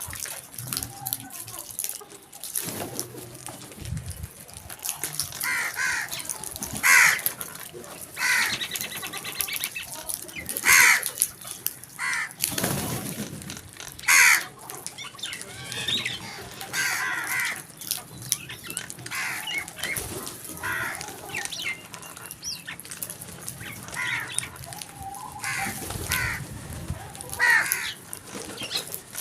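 A flock of crows cawing, with many harsh calls coming one after another and overlapping. The loudest caws come about 7, 11 and 14 seconds in.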